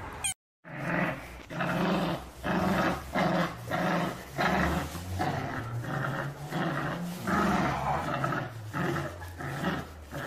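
Dog growling in repeated short bursts during a tug-of-war over a cloth, with a low rumble underneath.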